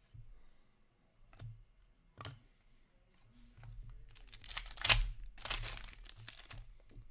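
Foil trading-card pack wrapper being torn open and crinkled, about three seconds of crackling that is loudest near the middle. A couple of light taps from card handling come before it.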